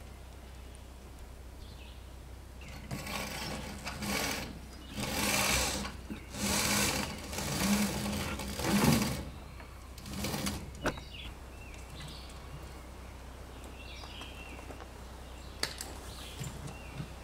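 A sail being hoisted by hand: the halyard whirs through its block in about six pulls of a second or so each, with the sailcloth rustling as it rises.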